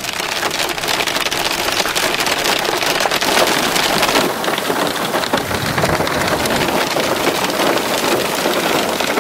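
Hail falling hard, a dense, steady patter of countless small hits.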